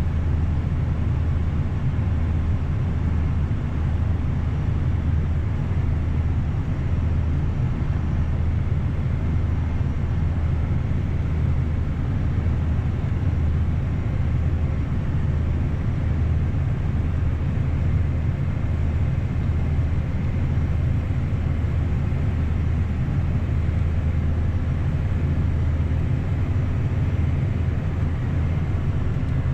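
Heavy harvest machinery running steadily, a constant low engine drone with no change in pace.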